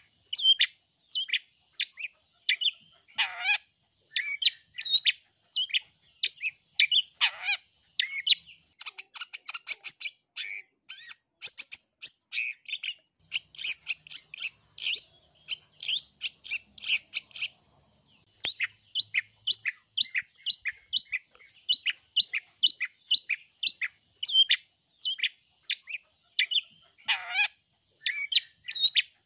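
Long-tailed shrike (cendet) singing in a rapid, unbroken run of short chirping notes, several a second, turning into a faster, denser stretch through the middle. Three harsh calls that sweep steeply down cut in, about three seconds in, after about seven seconds, and near the end.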